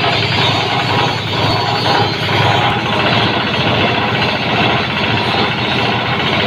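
Kubota diesel engine running steadily, with a fast even firing beat, driving a grass chopper machine.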